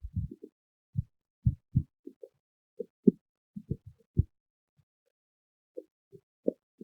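Human stomach growling: a string of short, low gurgles and pops at an irregular pace, pausing for a second or so partway through.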